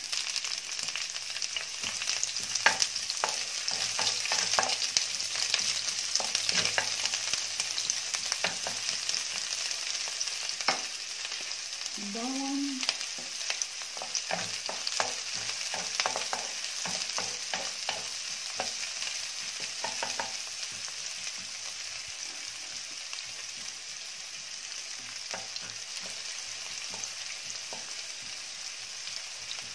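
Sliced red onion and garlic frying in a non-stick wok, a steady sizzle that is strongest in the first half and then settles lower. A wooden spoon stirs them, with scattered taps and scrapes against the pan.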